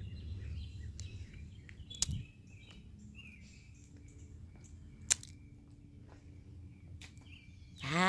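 Quiet outdoor ambience with faint, scattered bird chirps. A low rumble fades out about two seconds in, and two sharp clicks come about two and five seconds in.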